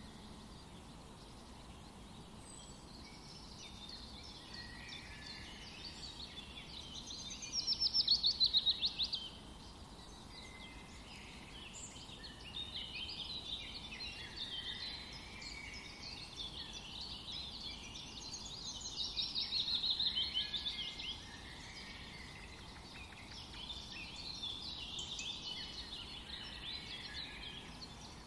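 Birdsong: small birds chirping and warbling, with two louder rapid trills about twelve seconds apart.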